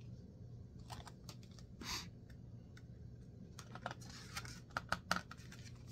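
Paper picture book being handled and its page turned: a short papery swish about two seconds in, then a run of light clicks and rustles later on.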